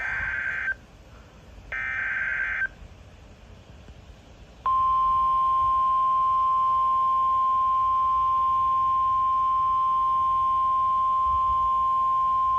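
NOAA Weather Radio Emergency Alert System signal: two roughly one-second screeching bursts of SAME header data about a second apart, then, about two seconds later, the 1050 Hz warning alarm tone comes on as one loud, steady, piercing tone. The sequence marks the start of a flash flood warning broadcast.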